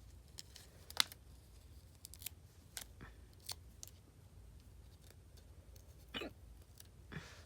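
A woman hiccups once, a short voiced catch about six seconds in. Around it are faint, scattered sharp clicks from handling nail polish strips and their packaging, the loudest about a second in.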